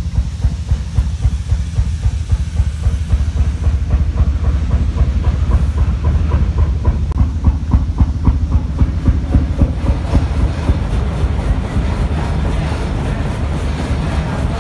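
Big antique engines running: a low, regular exhaust beat about two to three times a second, with steam hiss. From about ten seconds in, the beat gives way to a denser, steadier mechanical clatter with fine rapid ticking.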